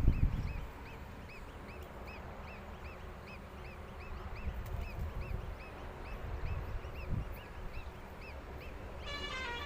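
A bird repeating short high chirps, each rising and falling, about two or three a second, over a low rumble. Music comes in near the end.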